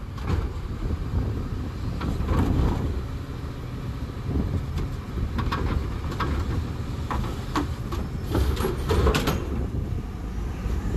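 Autocar ACX garbage truck running while its New Way Sidewinder automated side-loader arm lifts a trash cart, dumps it into the hopper, and lowers it back to the curb. Clusters of knocks and bangs from the cart and arm come in the middle and later part of the cycle.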